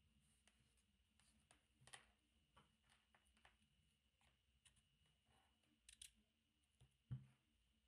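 Faint handling noise of 3D-printed plastic parts and a GPS antenna puck: scattered light clicks and taps as the parts are picked up and the puck is pressed into its bracket, with a soft knock near the end.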